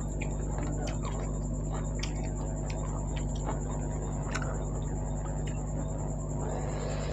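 Close-miked eating sounds: irregular wet mouth clicks, smacks and chewing of wheat dhido and goat meat curry. Under them runs a steady electrical hum with a constant high-pitched whine.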